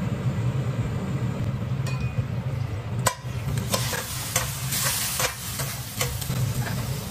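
Minced pork sizzling in a hot stainless steel frying pan while a metal spatula stirs and scrapes it, with a sharp clack of spatula on pan about every second from about three seconds in. A steady low hum runs underneath.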